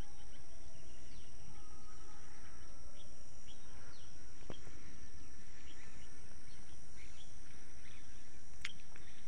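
Outdoor field ambience: a steady high insect trill, with scattered short bird chirps and clicks, over a steady low rumble.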